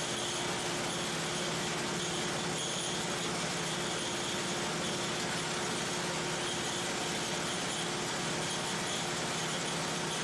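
Gasoline engine of a portable band saw mill running at a steady speed.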